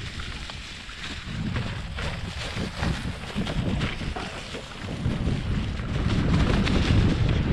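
Mountain bike descending a dirt trail covered in dry leaves: wind buffeting the onboard camera's microphone, tyres rolling over leaves and dirt, and the bike rattling over bumps. It grows louder about five seconds in.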